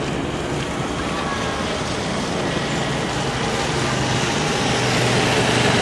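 Steady city traffic noise, with a low engine hum, slowly growing louder.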